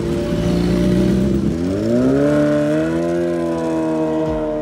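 A vehicle engine running, its pitch climbing smoothly about a second and a half in and then holding higher as it accelerates.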